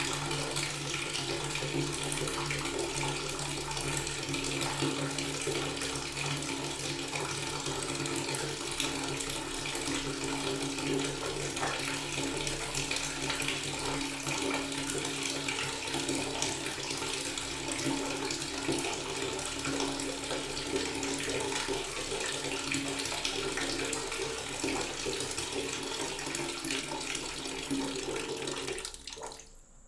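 A water tap running steadily, a continuous rush of water with a faint steady hum beneath it. It fades out just before the end.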